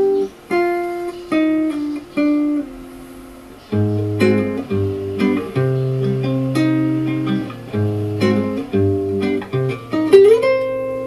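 Recorded song played back through a Melody H88 KT88 valve amplifier and loudspeakers: a plucked acoustic guitar intro, with a bass line joining about four seconds in. The playback is loud enough that the recording clips and distorts in places.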